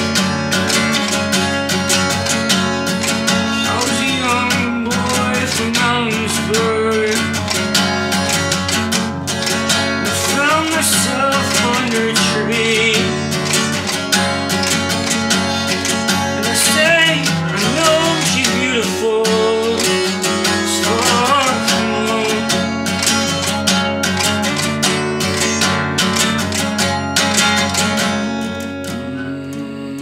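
Solo guitar playing: a steady stream of quick picked notes over held low notes, with bent, wavering melody notes. It gets softer near the end.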